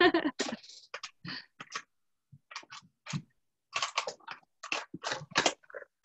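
Irregular short clicks and taps, a few with a dull knock, coming through a video-call microphone.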